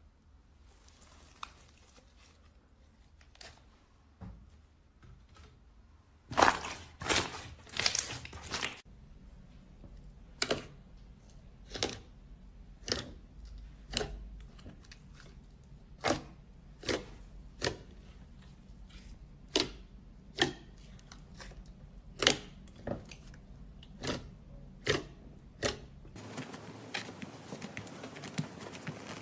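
Slime being squeezed and poked by hand: a run of crackling about six seconds in, then a string of sharp pops roughly once a second.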